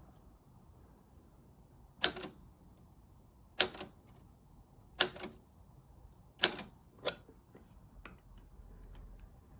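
Remington Quiet-Riter portable typewriter keys struck one at a time: four sharp clacks about a second and a half apart, then a lighter clack and a few faint ticks.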